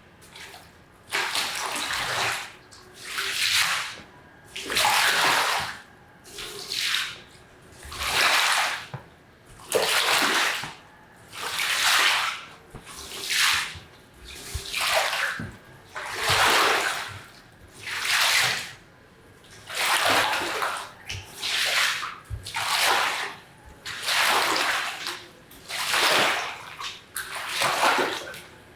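Rhythmic wet swishing as a soaked carpet is worked over with water in repeated strokes, about one every one and a half seconds.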